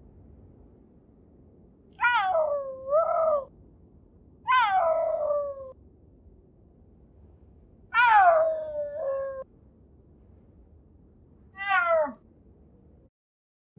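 A cat meowing: four separate calls a few seconds apart, each falling in pitch, the last one short.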